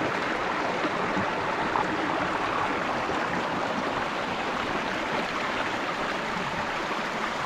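A mountain creek's water rushing and babbling steadily over rocks.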